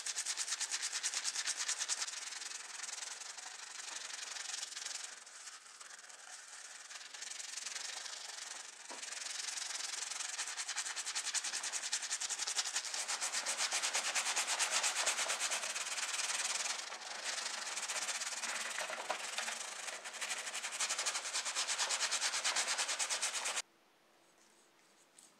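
Wire brush scrubbing a soapy, foam-covered metal model-car base plate, in rapid back-and-forth scratchy strokes. It stops abruptly near the end.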